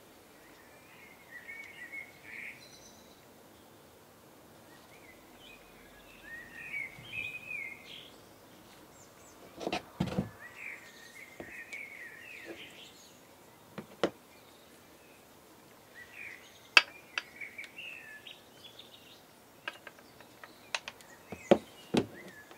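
Scattered sharp clicks and knocks of small aluminium and brass model steam engine parts being handled and set down on a workbench. Birdsong chirps faintly in short spells between them.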